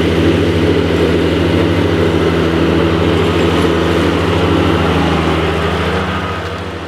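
John Deere 455 garden tractor's three-cylinder diesel engine running at a steady speed as the tractor drives across the grass, dying away near the end.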